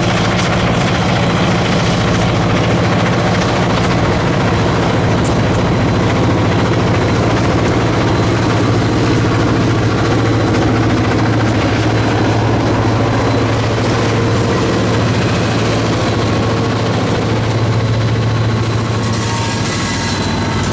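EMD diesel freight locomotives, led by an EJ&E SD38-2 with its Roots-blown 16-cylinder 645 engine, running under power with a steady low engine drone. Near the end the engine note falls away and the rolling noise of the freight cars rises.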